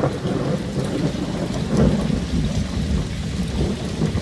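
Rain falling with a low rolling rumble of thunder that swells to its loudest about two seconds in, over a steady hiss of rain.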